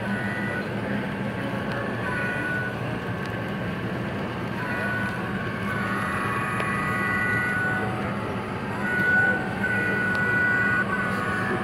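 Model train's horn sound played through its speaker, sounded in several blasts of varying length, the longest in the middle and near the end, over a steady low hum.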